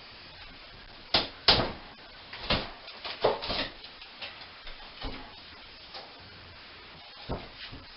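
Hammer blows knocking holes in a bathroom wall during demolition, irregular and uneven. The loudest strike comes about a second and a half in, with a cluster of blows soon after and lighter knocks toward the end.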